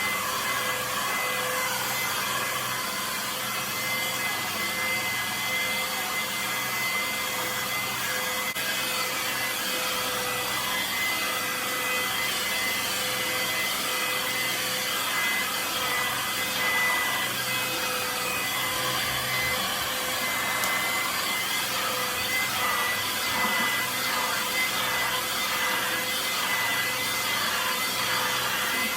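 Handheld hair dryer running steadily: an even rush of blowing air with a constant whine from its motor, at one unchanging setting.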